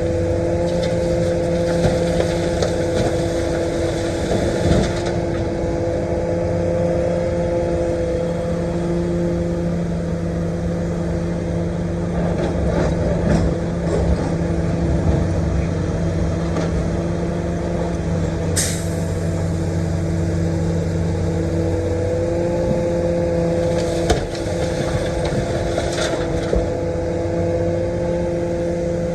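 Komatsu PC450-8 LC excavator working: its diesel engine runs at a steady pitch throughout. A rush of hissing noise comes over it in the first few seconds and again near the end, with a sharp click about two-thirds of the way through.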